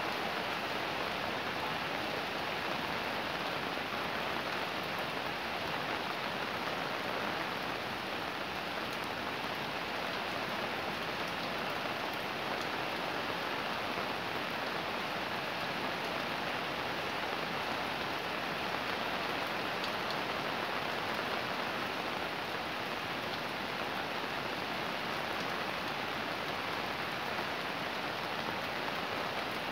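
Fairly heavy rain falling steadily, an even, unbroken wash of rain noise.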